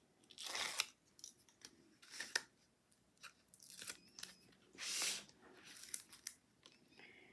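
Backing paper being peeled off foam adhesive strips and cardstock being handled: several short rasping tears and small clicks, the strongest about half a second in and about five seconds in.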